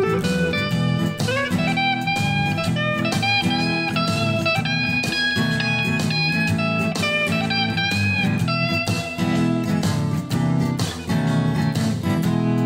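Instrumental break of a blues song: a slide guitar plays gliding lead lines over a steady band backing.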